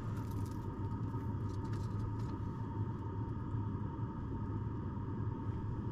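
A steady low hum with a faint, even high tone above it.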